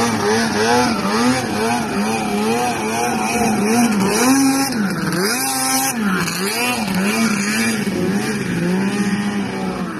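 Snowmobile engine running hard as the sled skims across open water, its pitch rising and falling over and over.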